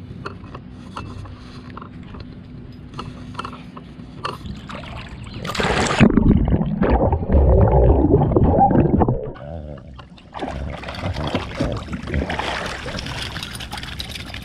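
A dog plunges into a swimming pool with a loud splash about five and a half seconds in, followed by about four seconds of loud, muffled bubbling and churning heard from underwater. Near the end there is steady splashing and spray as the wet dog scrambles out and shakes water off its coat.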